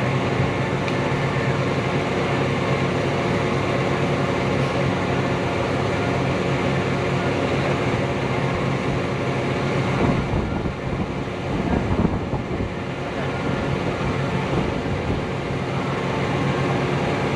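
Rollback tow truck's engine running steadily, an even drone that shifts and dips briefly about two-thirds of the way through.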